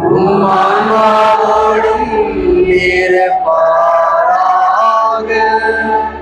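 Church choir singing, male voices leading, in long held notes.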